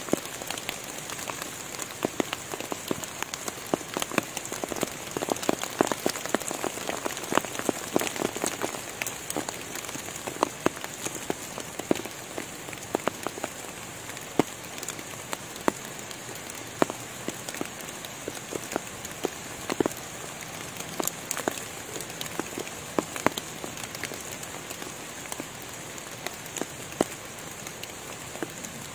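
Rain falling on forest foliage: a steady patter with many separate drops striking, a little denser in the first several seconds, over a faint steady high hiss.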